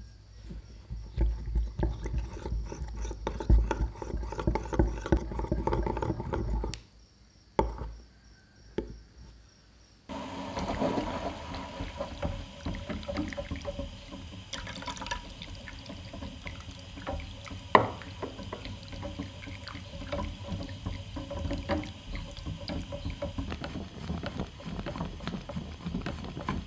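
Liquid sounds from making hot chocolate. For the first several seconds there is louder sloshing with low thumps, which stops briefly about seven seconds in. From about ten seconds in, milk and melted dark chocolate swirl and slosh steadily in a saucepan on the stove, with small ticks and clicks.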